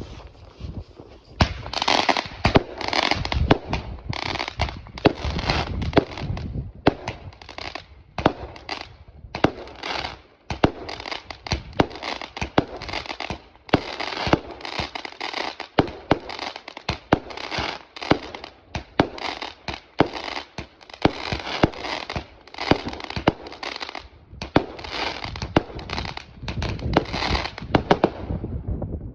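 Mad Mango consumer firework going off: a rapid, continuous string of shots and crackling bursts. It starts about a second and a half in and stops abruptly just before the end.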